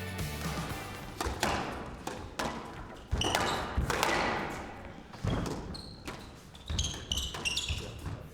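Background music fading out, then a squash rally: the ball cracking off rackets and thudding against the court walls, with short shoe squeaks on the court floor between shots.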